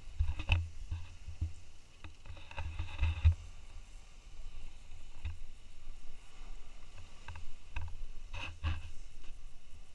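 Footsteps and handling knocks on a handheld camera while walking down a rough rocky path, irregular thuds and clicks, with wind rumbling on the microphone.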